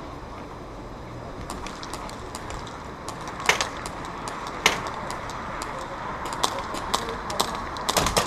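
Airsoft guns firing during a close-quarters skirmish: scattered sharp pops and clicks, sparse at first and then coming faster. Two louder snaps come a few seconds in.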